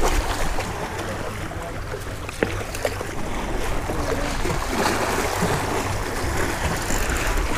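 Wind buffeting the microphone over small waves washing and splashing against jetty rocks.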